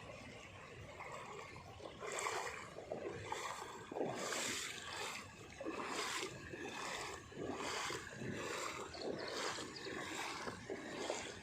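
Heavy monsoon rain pouring, growing louder about two seconds in and then surging up and down in uneven waves.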